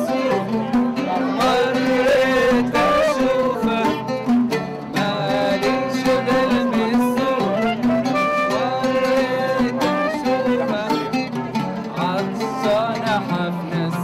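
Live music from a small ensemble: ouds and an acoustic guitar plucked together, with a man singing along.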